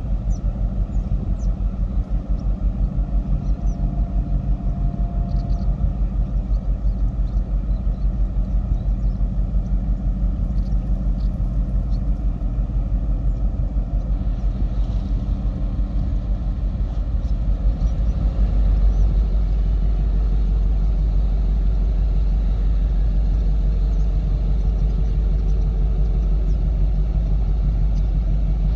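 Low engine rumble with a fast, even pulse, growing a little louder about eighteen seconds in.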